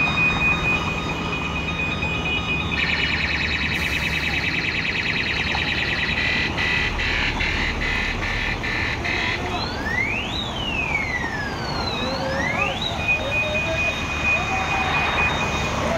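Truck's electronic multi-tone horn: a steady high beep, then a fast warbling pattern for several seconds, then a few rising-and-falling siren whoops about ten seconds in, and the steady beep again near the end. Underneath, the truck's engine runs with a low rumble.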